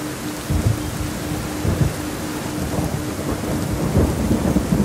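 Steady rain with low thunder rumbling in, swelling about half a second in and again near the end. A faint low tone pulses about four times a second underneath.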